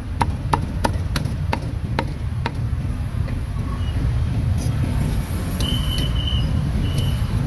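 A cleaver chopping roast meat on a cutting board, about three strokes a second for the first couple of seconds and then only now and then. Under it runs the steady rumble of street traffic.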